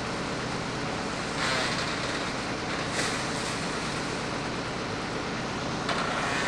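Amphibious excavator's engine running steadily, with a short rush of noise about a second and a half in and brief knocks about three and six seconds in.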